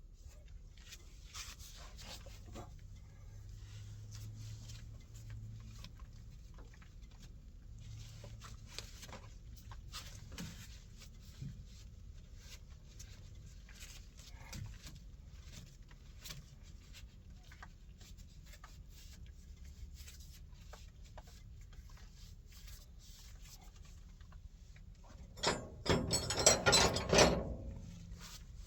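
Scattered scraping and scratching as caked dirt is cleaned off hydraulic hose fittings, with a louder rough scrubbing noise lasting about two seconds near the end.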